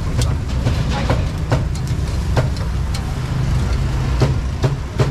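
Street-food stall ambience: a steady low rumble of engines or traffic, with irregular sharp clicks and clinks of metal tongs on the grill and trays.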